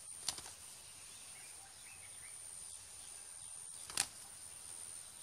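Quiet outdoor background with a steady high-pitched whine, two sharp clicks (one just after the start, one about four seconds in) and a few faint short chirps.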